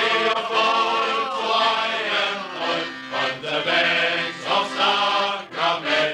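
Men's shanty choir singing together in full voice, accompanied by an accordion.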